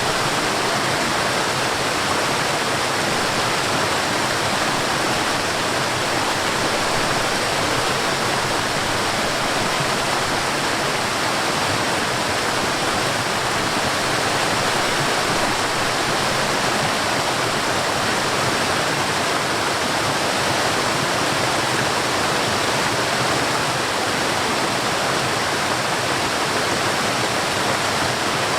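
Forest waterfall: a steady, unbroken rush of falling water.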